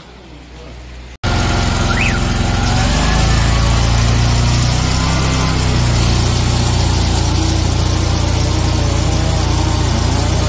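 Truck-mounted high-pressure drain jetter running as a repaired rotating turbo nozzle is test-run: a steady engine hum under a loud, even hiss of water jetting. It starts abruptly about a second in and holds steady.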